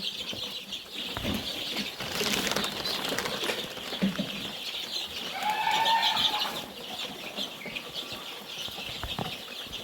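A flock of two-week-old chicks peeping steadily, with wing-flapping and scuffling as the thirsty birds crowd in to drink.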